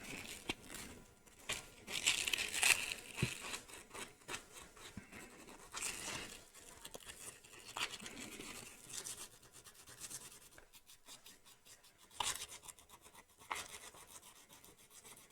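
400-grit sandpaper rubbed over a glue-patched fingernail: irregular scratchy rasping strokes, loudest about two to three seconds in and again near the end, smoothing down the hardened glue repair.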